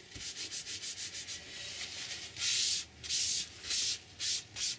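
A bare hand rubbing over a sheet of paper freshly glued down with a glue stick, smoothing it and wiping off glue: quick short strokes at first, then four or five longer, louder sweeps in the second half.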